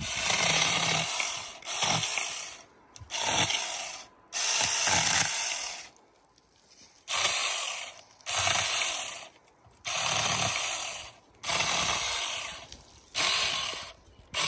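Saker 4-inch cordless electric mini chainsaw running in about nine short bursts of roughly a second each, with a pause near the middle, as it cuts the lower branches off a thin pine trunk.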